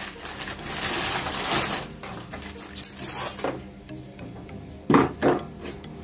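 Optical-fibre fusion splicer running its automatic cycle with the lid closed: two stretches of whirring from its motors, then two short knocks about a second before the end.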